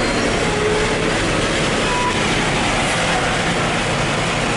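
Heavy tractor-trailer running at low speed, a steady rumble of diesel engine and rattling chassis noise heard from the cab.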